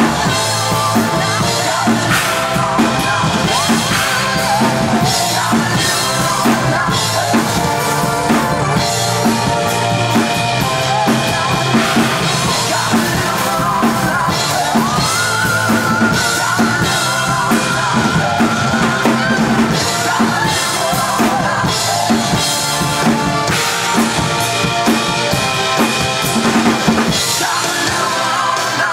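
Ludwig drum kit played in time with a recorded hard-rock song: kick drum, snare and cymbals over the song's band, with one long held note about halfway through.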